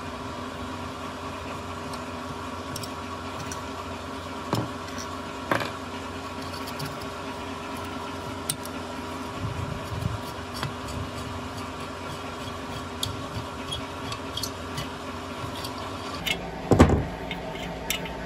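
Light metal clicks and knocks of a steel tool working a rusty small four-stroke engine, with a louder metal clank near the end, over a steady mechanical hum.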